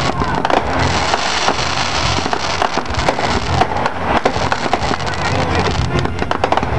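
Aerial fireworks crackling and popping: many sharp cracks in quick, irregular succession as comets and small shells burst.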